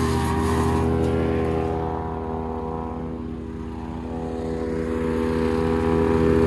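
Wood chipper's engine running steadily at an even pitch, with a harsher rasp on top that fades out about two seconds in and returns near the end.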